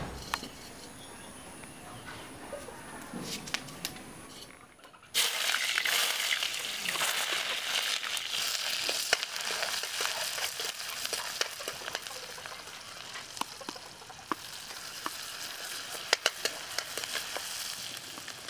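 Food frying in hot oil in a wok, a dense sizzle that starts suddenly about five seconds in, with scattered sharp crackles through it.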